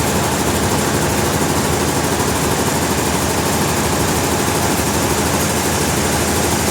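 Sawmill machinery running steadily: an even, loud engine-like drone with a hiss over it, no change in pitch or level.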